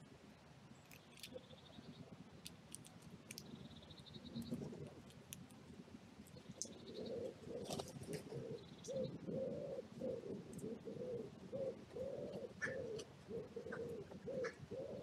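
A pigeon cooing, a steady run of low notes about two a second, starting about halfway through. Now and then a small bird gives a short high trill, and there are scattered sharp clicks.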